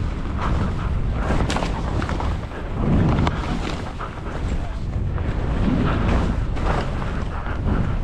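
Wind rumbling on the GoPro's microphone as a skier runs through deep powder, with the steady hiss and swish of the skis through the snow.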